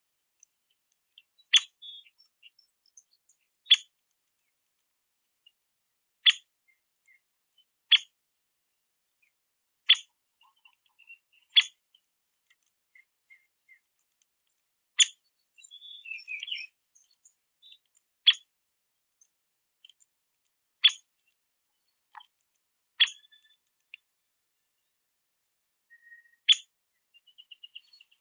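Male downy woodpecker giving short, sharp single call notes, each a quick 'pik', about eleven of them spaced two to three seconds apart, with a brief softer run of notes just past the middle.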